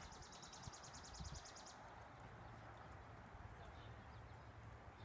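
Faint hoofbeats of several ridden horses moving over the soft sand footing of a riding arena, as a few soft low thuds. A high, rapid trill of about eight notes a second sounds over them during the first two seconds.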